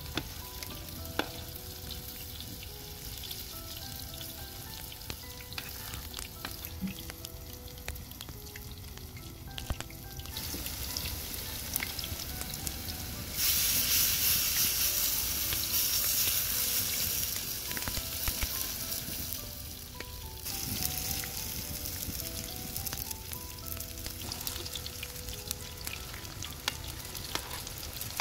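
Shredded-potato patties frying in a wide pan of hot oil, a steady sizzle with scattered small pops. It swells about ten seconds in, is loudest for several seconds, and eases back near twenty seconds in.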